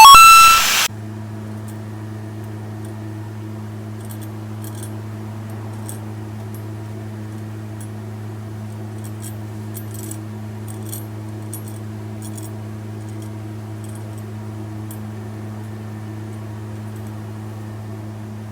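A loud burst of noise cuts off abruptly about a second in, leaving a steady low electrical hum with faint, scattered light metallic clinks and ticks.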